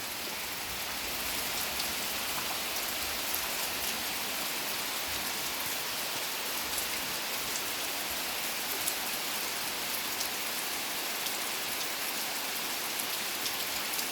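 Steady heavy rain falling on and running off a house roof, an even hiss with scattered drop ticks.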